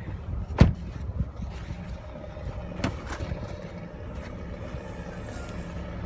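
A 2017 Honda HR-V's car door shutting with one loud thump about half a second in, then a lighter knock about three seconds in, over a steady low hum.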